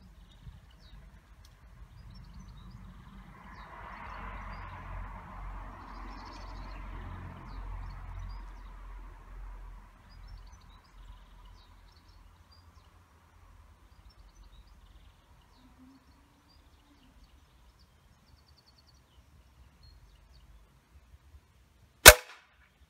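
A single sharp shot of a Steyr Challenge E compressed-air match rifle firing a pellet near the end, loud and short; before it, only faint outdoor background with a soft rushing swell a few seconds in.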